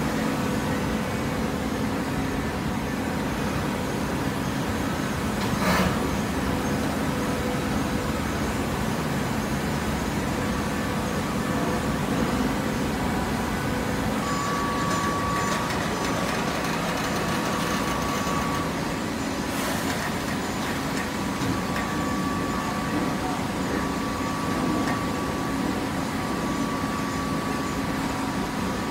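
Hydraulic cardboard baler's power unit running with a steady hum. A higher whine comes and goes from about halfway through, and there are two sharp clicks about 14 seconds apart.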